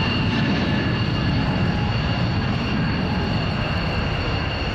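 Jet aircraft engines in flight: a steady rumble with a high whine over it, easing off slightly near the end.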